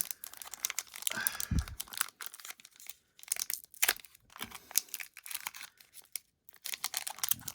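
Foil Pokémon booster pack wrapper being torn open and crinkled by hand, a run of short crackles and rips with brief pauses between them.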